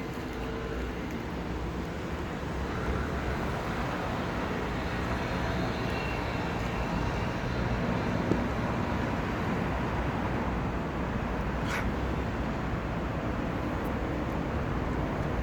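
Steady low rumbling background noise, with one brief click about eight seconds in.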